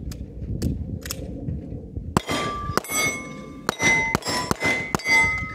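A quick string of shots from a Glock 19 9mm pistol, starting about two seconds in, with the clang of steel target plates ringing on after the hits.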